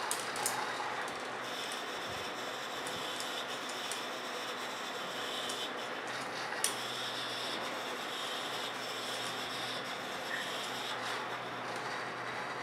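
Small servo motors of a robotic cooking arm whining as it moves its stirrer in the pot, the whine starting and stopping with the arm's movements, over a steady hiss. Two sharp clicks, one just after the start and one about halfway through.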